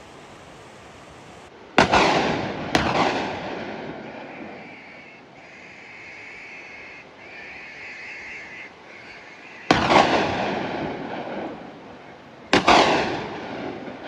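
Four gunshots, each echoing and dying away over a couple of seconds. Two come about a second apart near the start, one about ten seconds in, and another about three seconds after that.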